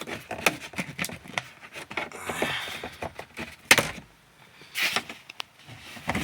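Brittle plastic rear deck speaker grille of a BMW E60 being pried up by hand: a run of small clicks and knocks with scraping, and one loud sharp snap just past the middle.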